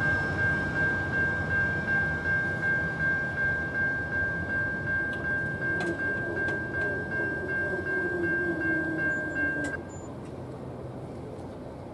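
Railroad crossing bell ringing in rapid, even strokes while the gate arms rise. A low hum falls in pitch as the arms lift, with a few sharp clicks. The bell cuts off about ten seconds in as the gates reach upright.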